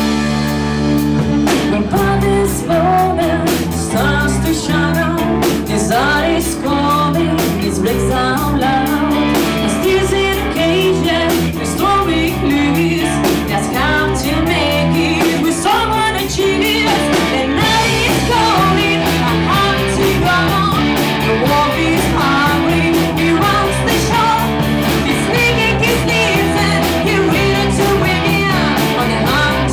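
Hard rock music: electric guitars over bass and a drum kit with a steady beat.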